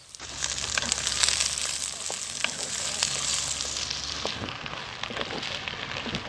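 Chopped capsicum, onion, ginger and garlic sizzling in hot oil in a clay pot, with scattered crackles and pops. The sizzle swells just after the start.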